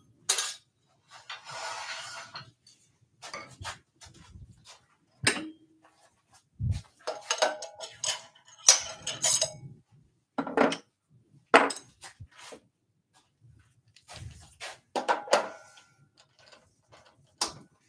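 Workshop handling sounds: scattered knocks and metallic clinks as turning tools and the wood lathe's chuck are handled, with a short rub about a second in and a ringing metal clink about halfway through.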